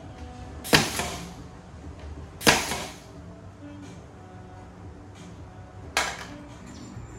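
Three loud, sharp impacts: one about a second in, one about two and a half seconds in, and one near the end, each with a short decaying tail. Quiet background music plays underneath.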